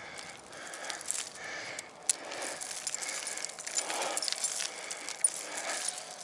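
Steel snow chains on a blue cable frame jangling as they are carried, the links clinking and knocking together in quick irregular clicks.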